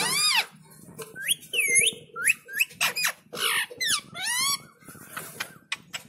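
Rose-ringed parakeet vocalizing: a string of about nine short, high-pitched squawky calls, each bending up and down in pitch. The loudest call comes at the start.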